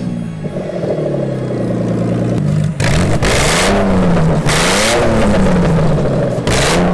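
Toyota 2JZ inline-six engine, on short open exhaust pipes, being revved repeatedly, its pitch climbing and dropping back several times with a harsh blare at the top of each rev. The engine is newly running on a basic first tune.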